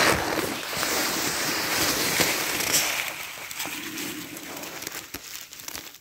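Footsteps rustling through fallen leaves and twigs on the forest floor, with small snapping clicks. The sound gets quieter over the last few seconds.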